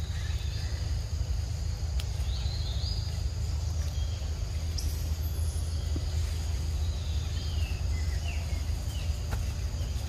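Forest ambience: insects buzzing steadily at a high pitch, with scattered short high chirps, over a steady low rumble.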